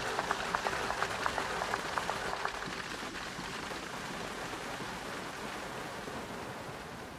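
Airflow hiss in the cockpit of a Blanik L-13 glider in flight, with a fast even ticking of about four a second and a faint steady tone that stop about two and a half seconds in. The hiss then fades slowly away.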